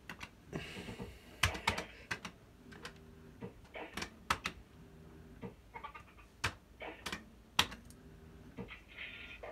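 QPS Yabba Dabba Dough fruit machine being played: a dozen or so sharp clicks from its buttons and spinning reels, scattered unevenly, with short electronic beeps and jingle notes in between.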